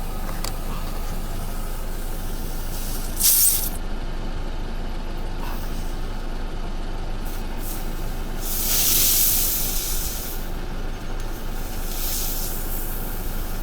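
Air hissing out of a punctured car tyre during a roadside plug repair, in separate bursts: a short loud one about three seconds in, a longer one that swells and fades around nine seconds, and a weaker one near the end. The puncture has been torn wider and is still leaking.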